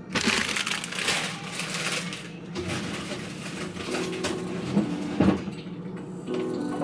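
A plastic produce bag of pears crinkling and rustling as it is handled, dying away after about two and a half seconds. Two short knocks follow about five seconds in.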